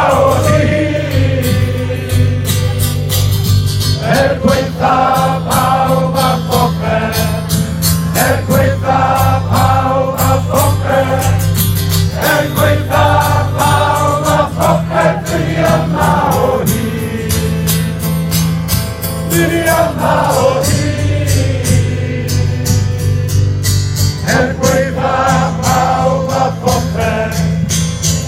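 A live song played loud through a PA, with a large crowd singing along in chorus, in phrases a few seconds long over a steady bass line and beat.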